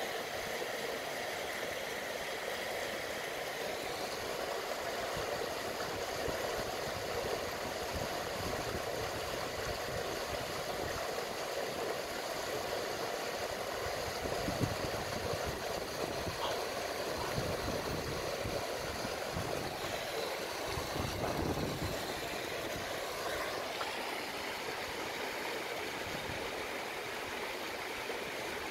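Steady rushing of a mountain stream pouring over rocks into a pool.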